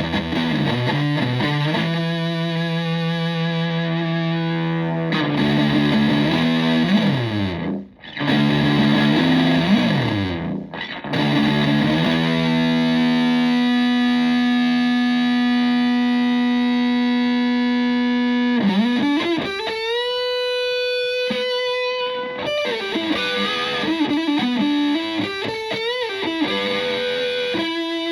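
Stratocaster electric guitar played through a Tone Bender MKII fuzz pedal into a Fender Twin Reverb–style tube amp, giving a thick, fuzzy tone. The guitar plays riffs with slides down the neck, then a long sustained note, then a note bent up and held with vibrato about two-thirds through.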